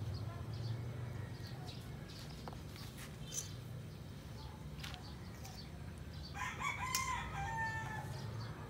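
A rooster crowing once, about six and a half seconds in, for about two seconds, over a steady low hum.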